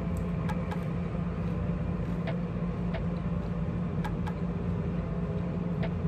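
A steady low hum, with faint, irregular clicks from chewing a bite of fried chicken.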